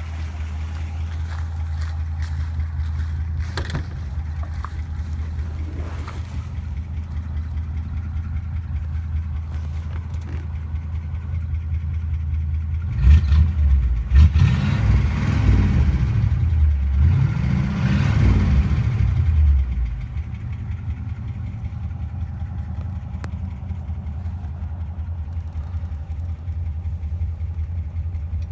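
A vehicle engine idling with a deep, steady rumble. About halfway through it is revved up twice in quick succession, then settles back to idle.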